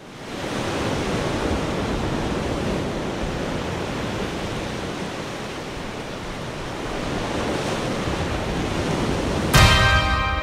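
A steady rushing noise, like wind or surf, fades in at the start and holds. About nine and a half seconds in, a loud sustained musical chord comes in suddenly.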